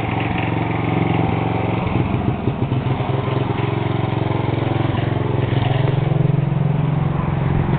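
Homemade chopper trike built on a John Deere riding mower, its small mower engine running steadily as it is ridden, growing a little louder about five and a half seconds in.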